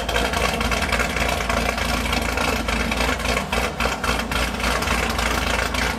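Car engine idling: a steady low rumble with an uneven, ticking edge.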